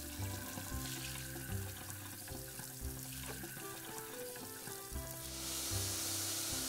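Semolina roasting in ghee sizzles softly under background music with a steady bass line. About five seconds in, a loud, steady hissing sizzle starts as sugar syrup is poured into the hot semolina and ghee.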